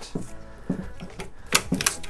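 Thick rubber bands being stretched across a model plane's wing and snapping against its surface: a few sharp snaps, with a quick cluster of them about one and a half seconds in.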